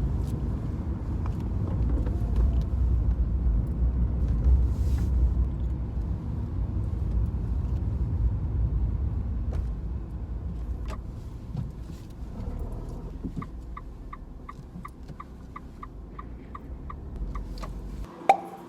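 Car interior road and engine rumble that fades as the car slows, then the turn-signal indicator ticking steadily, about three ticks a second. Near the end the rumble drops away and there is one sharp click.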